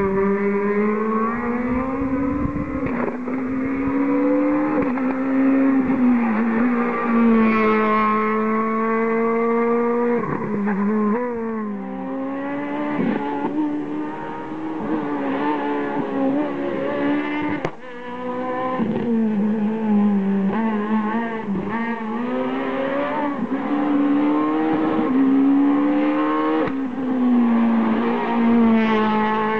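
Rally car engines run hard at high revs on a stage, the note climbing and falling with repeated gear changes and lifts for corners.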